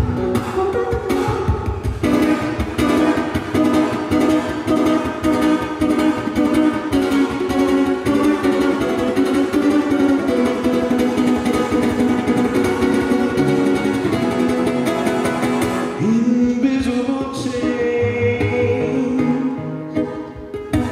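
Acoustic guitar played solo in fast, percussive strumming, with sharp strokes on the strings; about sixteen seconds in it eases into sparser, held notes.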